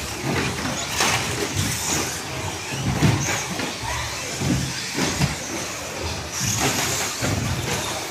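Electric short-course RC trucks racing on a carpet track: the whirr of their motors and tyres, with repeated knocks and clatters as the trucks land jumps and hit the track borders.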